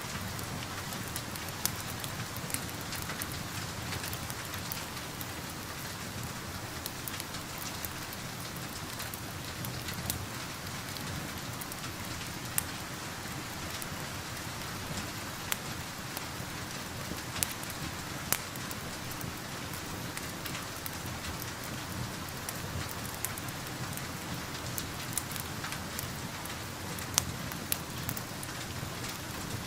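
Steady rain hiss with a crackling wood fire: scattered sharp pops at irregular moments over the even patter.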